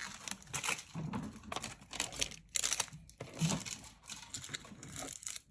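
Packaging crinkling and rustling as it is handled, in short irregular bursts.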